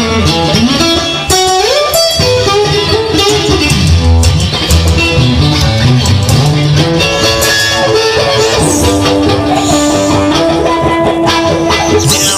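Instrumental break in a song: guitar lead over a steady low bass line, with a rising slide in pitch about a second and a half in.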